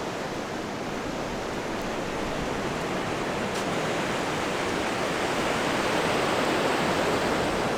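Sea surf washing on the shore: a steady rush of water that slowly swells louder.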